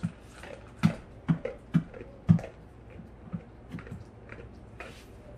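Kitchen knife jabbing into a pumpkin's rind: a series of short, sharp knocks, about two a second at first, then fainter and further apart after about two and a half seconds.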